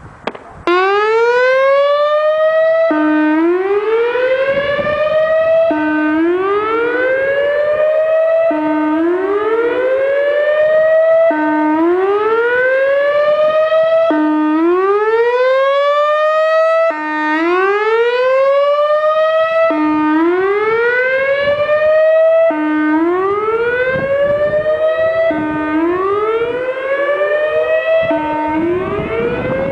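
Whelen 3016 electronic outdoor warning siren sounding its whoop tone, starting just under a second in right after a short pop. Each whoop is a brief low note that sweeps up and cuts off, repeating about every three seconds. The siren was malfunctioning on this tone, which the uploader figures could be a blown speaker driver.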